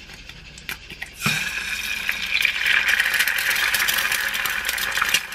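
Egg cracked into a frying pan of hot oil: a few faint clicks of the shell, then a little over a second in a sudden loud sizzle with crackling spatter as the egg hits the oil, going on steadily.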